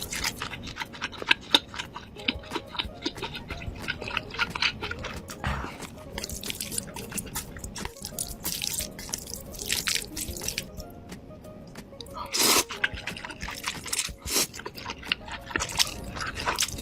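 Close-miked eating sounds: noodles being slurped and chewed, with many wet mouth clicks and smacks and a longer, louder slurp about twelve seconds in.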